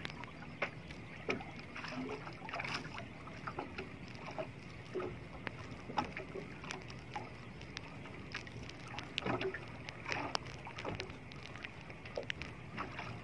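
Water lapping and slapping against the hull and outrigger floats of a small outrigger boat, with frequent short, irregular splashes and knocks over a steady wash.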